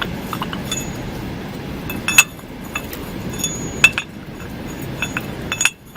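Steel engine parts clinking as the crankshaft timing sprocket is handled and fitted onto the crankshaft nose: a string of sharp metallic clinks, the loudest about two seconds in and just before four seconds, over a steady background noise.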